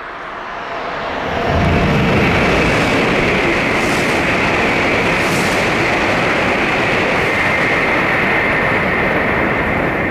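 E7/W7-series Shinkansen passing at high speed: a loud, steady rush of air and wheels on rail that swells about a second in and holds until the end.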